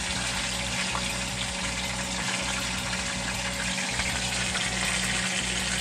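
Steady rushing hiss over a low, even hum.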